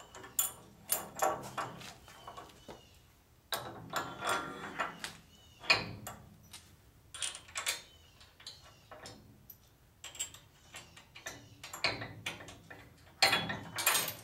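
Metal hand tools and suspension hardware clinking and clattering in irregular bursts as a bolt is fitted to fasten the spring to a trailing arm, with the loudest clatter near the end.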